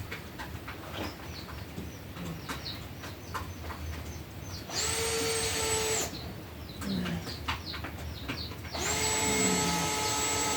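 A power drill runs twice in short spells, the second longer and running on past the end, over small chicks peeping throughout.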